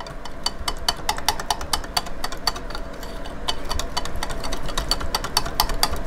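Wire whisk stirring a runny cream cheese and butter mixture in a glass Pyrex measuring cup, its wires striking the glass in rapid, irregular clicks.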